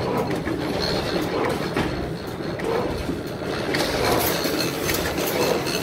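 A large antique horizontal stationary gas engine running steadily, with frequent clicks and knocks over its steady running.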